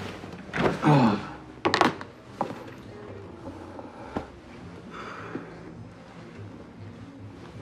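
Quiet bar room tone: a brief voice near the start, then a sharp knock about two seconds in, followed by a few faint clicks.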